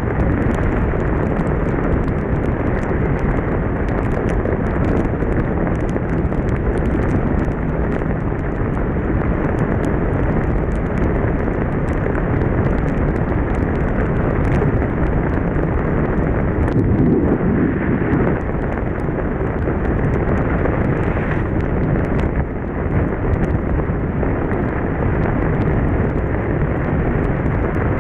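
Steady wind rush and road noise of a BMW motorcycle riding at speed on a wet road in the rain, with many small raindrop ticks hitting the microphone.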